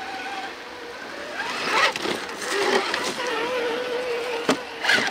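Electric motor and geartrain of a 1/10-scale Traxxas TRX-4 RC crawler whining in high gear as it climbs rocks, the pitch rising and falling with the throttle and holding steady for about a second past the middle. Two sharp knocks near the end.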